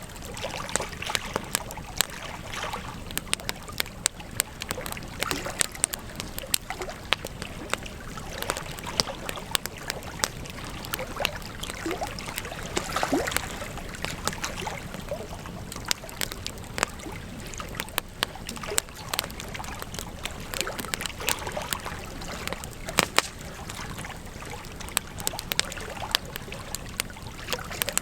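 Campfire crackling, with irregular sharp pops and snaps of burning wood over a steady hiss. A brief rising whistle comes around the middle.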